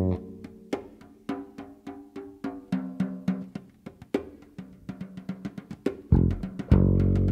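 Free-improvised jazz piano trio, drums to the fore: sparse, irregular strikes around the drum kit, with piano notes at the start. Near the end a loud low sustained note comes in and holds steady.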